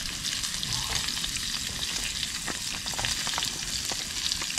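White-winged dove pieces frying in hot oil: a steady sizzle with scattered crackling pops.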